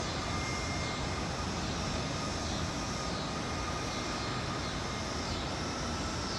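Distant jet airliner engines at a busy airport: a steady, even noise with a faint constant whine. A faint high sound falls in pitch about every two and a half seconds.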